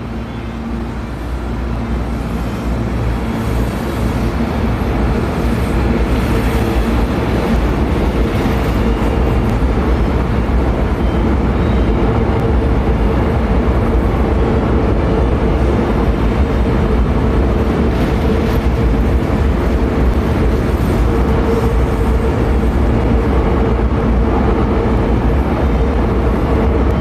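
Hankyu 1000 series electric train pulling out of the platform and running close past. The rumble of wheels and motors builds over the first several seconds, then holds steady as the cars go by.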